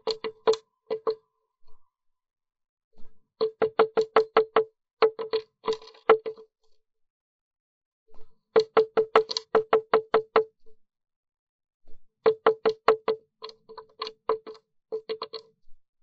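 Blue tit pecking at the wood of its nest box around the entrance hole: four bursts of rapid, even knocks, about seven a second, with short pauses between them.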